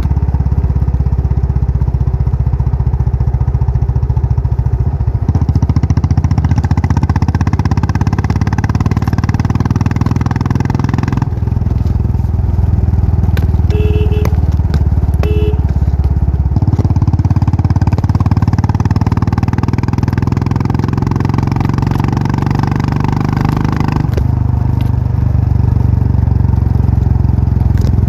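Royal Enfield Classic 500 single-cylinder engine running with its thumping exhaust note. The note shifts several times, brighter from about 5 to 11 seconds and again from about 16 to 24 seconds, steadier and deeper in between. Two short beeps sound around the middle.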